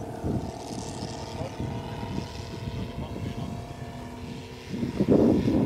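Saito FG-84 three-cylinder radial petrol engine of a large RC scale model Zero running steadily in flight, its propeller drone holding an even pitch. It swells louder near the end.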